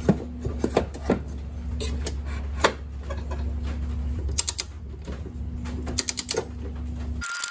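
Metal clinks and knocks as a lawnmower blade is seated on its blade adapter and the bolt started. Later come quick runs of ratchet-wrench clicks as the blade bolt is run down, all over a steady low hum.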